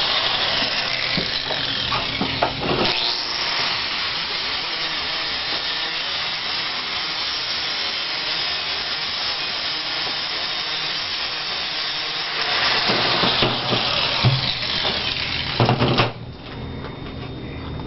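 Handheld power grinder polishing bare steel to clean it for welding. It runs steadily with a few knocks of metal, then stops abruptly about sixteen seconds in.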